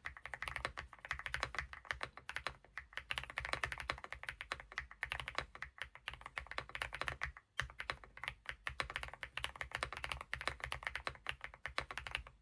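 Fast, continuous typing on a Weikav Lucky65 V3 mechanical keyboard with HMX Dirty Pink linear switches: a rapid run of keystroke clacks, broken by one short pause about seven and a half seconds in.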